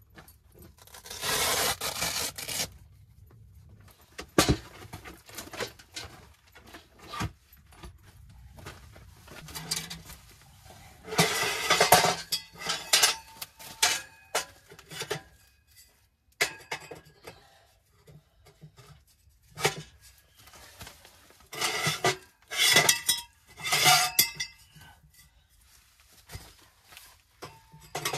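Sheet-metal tent wood stove being set up: irregular bursts of metal clanking, scraping and clinking as the stove, a metal heat shield and stovepipe sections are handled and fitted together.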